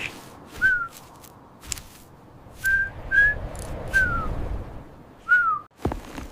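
Five short whistle-like tones, each starting with a sharp click, several sliding down in pitch.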